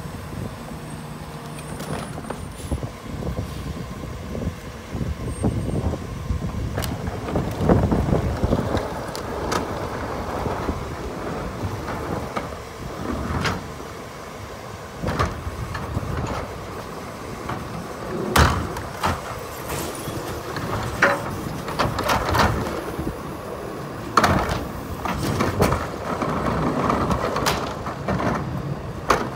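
Rear-loader garbage truck idling while wheeled trash carts are tipped by hand into its rear hopper and boxes are thrown in. Its steady engine rumble runs underneath, with a string of sharp bangs and knocks, thickest in the second half, as carts and trash strike the hopper.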